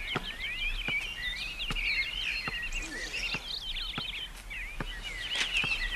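Small birds singing and twittering busily, with many quick chirps and warbles. A short click repeats at even intervals, a little faster than once a second.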